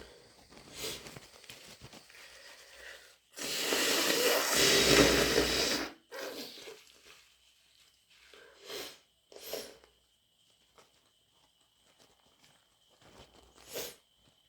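A person with a head cold blowing their nose hard into a tissue in one long noisy blow of about two and a half seconds, a few seconds in. Short sniffles come before and after it.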